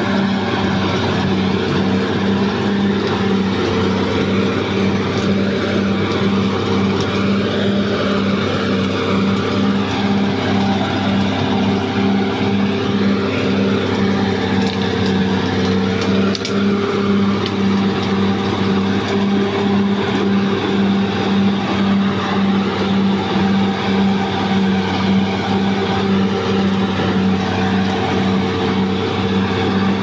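Caterpillar D6R XL crawler bulldozer's diesel engine running steadily, its drone pulsing at an even rhythm of a few beats a second.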